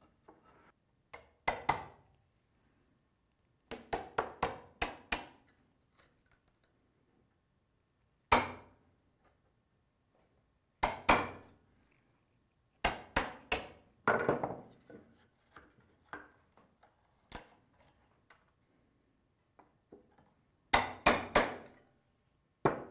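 Mallet blows on a chisel chopping waste out of a wooden mortise: sharp strikes in bursts, some single and some in quick runs of three to five, with short pauses between.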